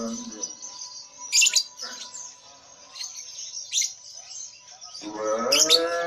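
Lovebirds giving a few short, high-pitched chirps a couple of seconds apart. About five seconds in, background music with singing comes in.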